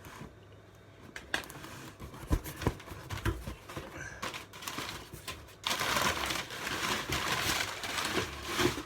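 Packaging being handled and opened: scattered clicks and knocks, then a few seconds of steady crinkling from about six seconds in.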